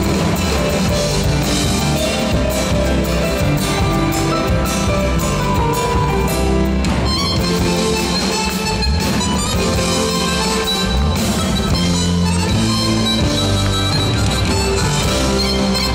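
Live band playing an Argentine folk dance tune on amplified electric guitar and drum kit, steady and loud throughout.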